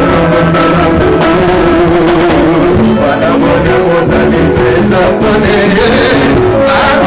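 Live band music with a man singing into a handheld microphone.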